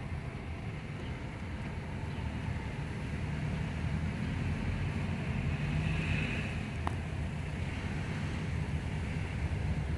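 Car driving slowly: a steady low engine and road rumble that grows a little louder over the first few seconds, with a single light click about seven seconds in.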